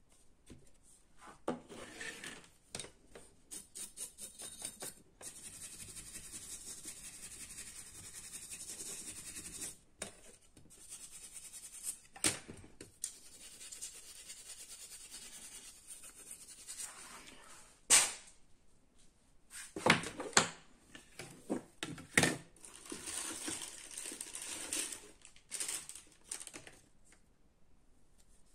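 Small screwdriver taking out the screws of a laptop's CPU heatsink and fan assembly, along with the handling of the metal cooler and circuit board on a wooden table. There is a run of small clicks, a few seconds of steady scraping about five seconds in, and several sharp knocks in the second half.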